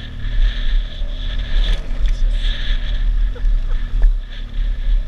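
BMW R1200GS flat-twin engine running at low speed as the motorcycle rides a gravel track, with tyre and gravel noise and a few short clicks of stones.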